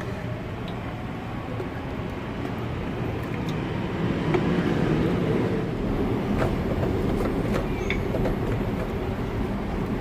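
Rumble of a passing train, swelling about four seconds in and staying loud, with faint clicks.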